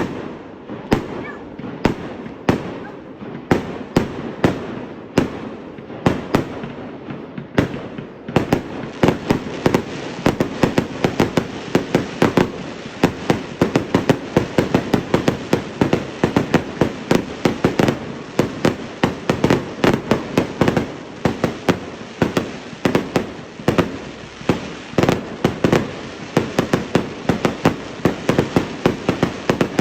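Fireworks bursting overhead: sharp bangs about one or two a second, turning about eight seconds in into a dense, rapid barrage of overlapping bangs.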